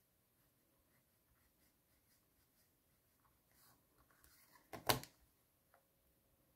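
Faint scratching of a fine-tip pen drawing along a plastic set square on paper. Just before five seconds in comes a short, loud clatter as the set square is moved and set down in a new place.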